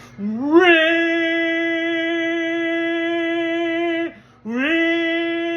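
A man imitating a tornado siren with his voice. A wail rises and holds one steady high note, breaks off about four seconds in, then rises again and holds.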